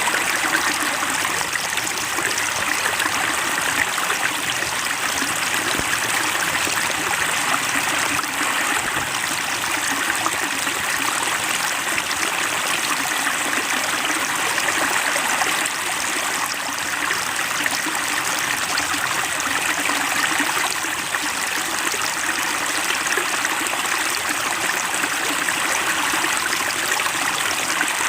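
Flowing water running steadily, a stream trickling and splashing without a break.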